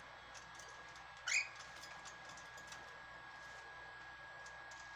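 Cockatiel giving one short rising chirp about a second in, with faint light clicks around it.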